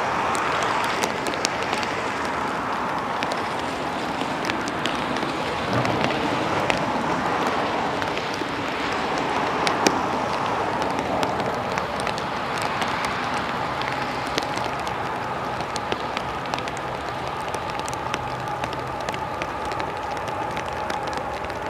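Steady rain falling, with many sharp drop ticks close to the microphone.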